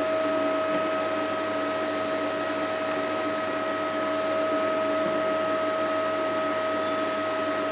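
A repaired 5.5 kW hybrid inverter running under power. It gives a steady hiss with a constant hum-like tone on top, unchanged throughout.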